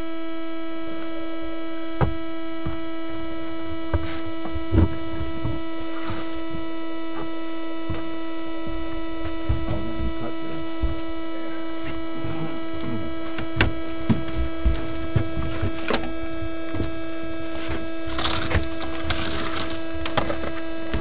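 Quadcopter drone's electric motors spinning at a steady idle, a constant pitched hum, with scattered knocks and taps.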